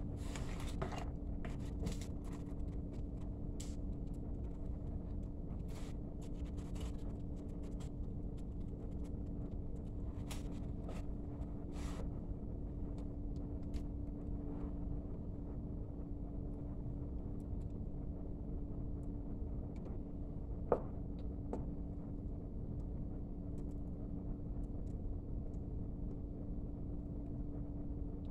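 A steady low hum with a held tone throughout, with light clicks and taps scattered over it, denser in the first half and with one sharper tap about two-thirds of the way in, as objects are handled at a counter.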